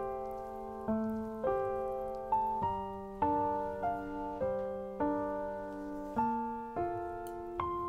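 Background piano music: a gentle tune of struck notes and chords, each note fading before the next, at a moderate, unhurried pace.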